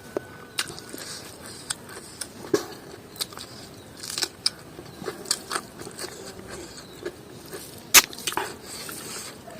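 A person eating: irregular mouth clicks and smacks of chewing, with one louder click about eight seconds in.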